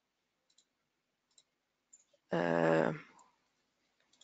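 A few faint computer mouse clicks, and a little over two seconds in a short, held voice sound of under a second, without words.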